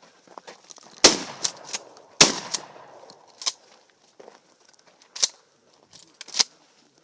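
Two shots from a Mossberg Maverick 88 pump-action shotgun, about a second apart, each with a long echoing tail. Sharper, quieter clicks and knocks come between and after the shots.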